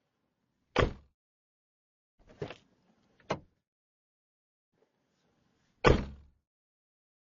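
Nissan Note car door heard from outside: a solid slam as it shuts, then the handle and latch clacking as it is opened again, and a second slam as it shuts about five seconds after the first.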